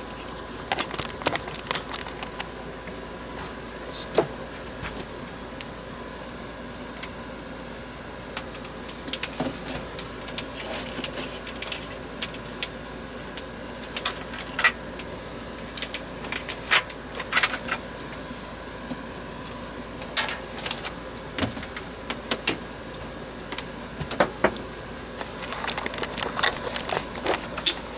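Power cord of a Lasko 20-inch box fan being unwound by hand: irregular clicks, taps and rustling handling noise, scattered throughout, over a faint steady hum.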